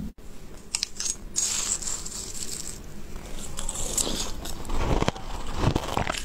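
A spoon scraping and scooping shaved ice in a glass bowl, then ice crunched and chewed in the mouth in the second half.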